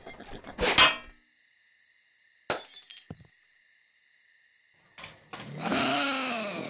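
Glass shattering: one sharp crash about a second in, with a high ringing that lingers for a few seconds, then a couple of small clicks. Near the end, possums screeching.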